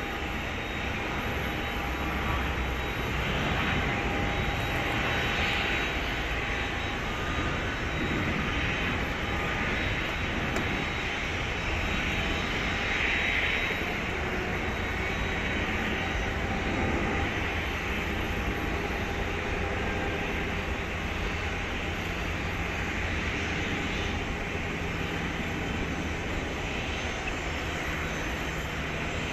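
Hawker 800XP business jet's two turbofan engines running at taxi power: a steady jet engine noise with a faint whine, swelling and easing slightly as the jet moves.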